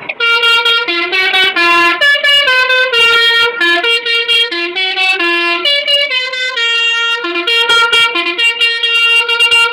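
Basuri telolet multi-tone bus horn playing a quick melody, its loud notes stepping up and down a few times a second. It cuts in suddenly at the start.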